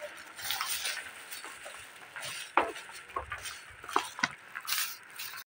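Scattered light clicks, taps and rustles from a phone being carried while walking, with no steady sound underneath; it cuts to dead silence abruptly near the end.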